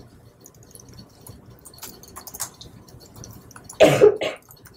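Typing on a laptop keyboard: scattered light key clicks, with a brief louder noise about four seconds in.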